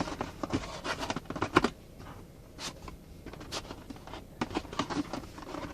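Cardboard tablet box being pulled and torn open by hand: irregular scrapes, crinkles and clicks of paper packaging, with a few sharper clicks in the first two seconds.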